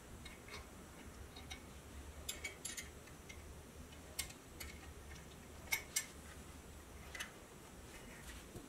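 Light metallic clicks and taps from handling and fitting parts of a pressed-steel toy truck, quiet and irregular, with the two sharpest clicks close together about six seconds in.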